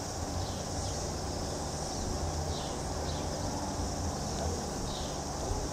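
Steady outdoor background of an even high-pitched insect-like hiss over a low rumble, with a few faint short chirps.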